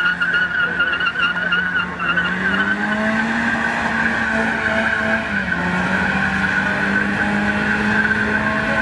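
A car held at high revs with its spinning tyres squealing steadily in a burnout or drift. The engine note steps up about two seconds in and dips briefly a little after five seconds, while the squeal carries on throughout.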